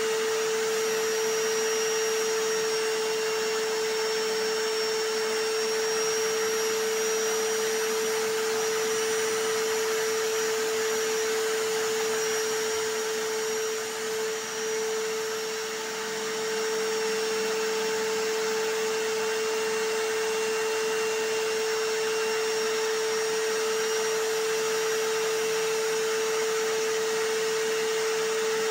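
A vacuum cleaner and a hammer drill running together as one continuous, even drone with a strong steady hum. The loudness dips briefly about halfway through.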